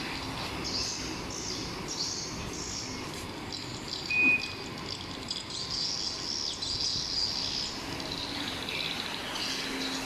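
The Proton Iriz's aftermarket keyless smart alarm gives one short, high beep about four seconds in. Birds chirp in the background.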